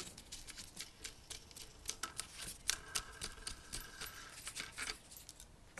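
Irregular small metallic clicks and taps as parts of a Panzerarms AR12 12-gauge shotgun are handled and removed during disassembly.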